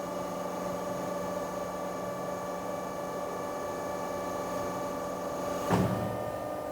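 Powered four-roll plate rolling machine running with a steady hum and whine while it bends a steel sheet into a cylinder. Near the end there is a sharp clunk and part of the hum cuts out.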